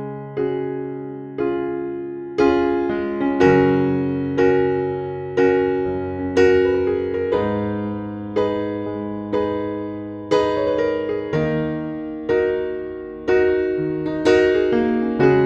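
Background music: soft electric piano chords struck about once a second, each ringing and fading.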